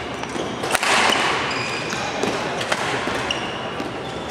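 Badminton rally in a hall: a few sharp racket strikes on the shuttlecock and short squeaks of court shoes on the floor, echoing in the room.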